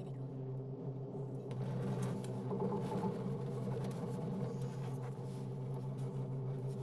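Steady low hum inside a moving gondola cable car cabin, with faint scattered clicks and rattles.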